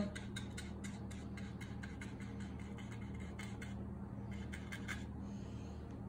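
Watercolor paintbrush dabbing short strokes on paper: soft, scratchy brushing, several strokes a second, that stops about five seconds in. A steady low hum runs underneath.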